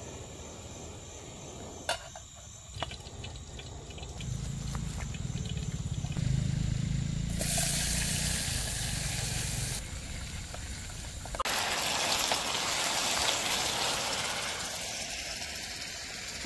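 Rain falling, an even hiss that starts and stops abruptly in two stretches, with a low rumble under the first part.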